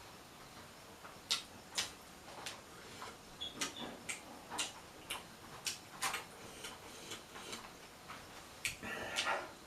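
Close-up eating sounds: wet mouth clicks and lip smacks while chewing, one or two a second at uneven intervals, with a denser, crunchier stretch near the end.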